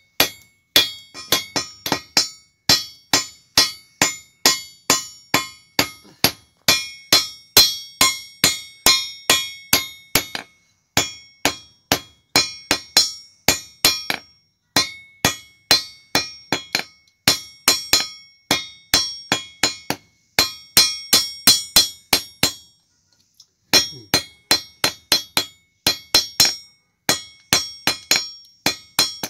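Blacksmith's hand hammer striking iron on an anvil, forging an iron trident, in a steady rhythm of about two to three ringing metallic blows a second, with one short pause a little after the middle.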